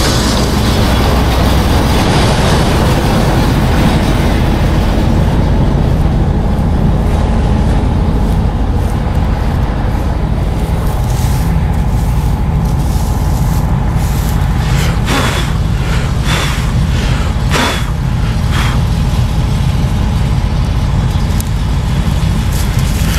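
Combine harvester running under load while harvesting barley: a steady, loud engine and threshing drone. A few short knocks sound in the second half.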